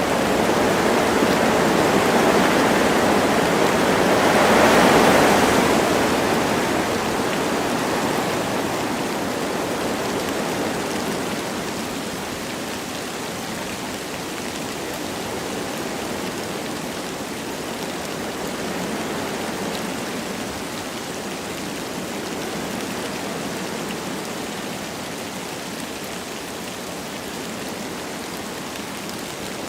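Wind blowing through forest trees with light rain falling. A gust swells about five seconds in and then eases off, leaving a softer, steady rush of wind and rain.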